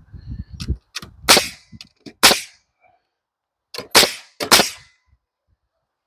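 Framing nailer firing four times, driving 3¼-inch spikes into rough-sawn lumber joists: two sharp shots about a second apart, a pause, then two more about half a second apart. Lighter knocking and handling noise comes before the first shot.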